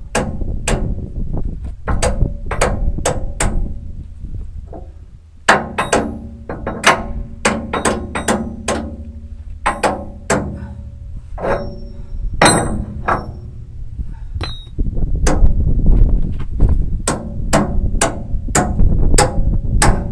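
Hammer striking a steel retaining pin to drive it through a loader bucket tooth and shank: repeated hard metal-on-metal blows that ring, about two a second, with a short pause about five seconds in. The pins are a tight fit and hard to drive in.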